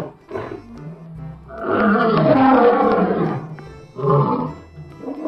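Lion roaring: a long roar lasting about a second and a half midway and a shorter one near the end, over background music.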